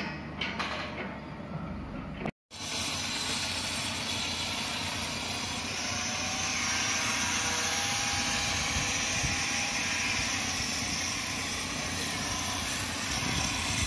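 Steady loud hiss of a high-pressure spray jet working against a concrete wall. It starts after a brief break about two and a half seconds in.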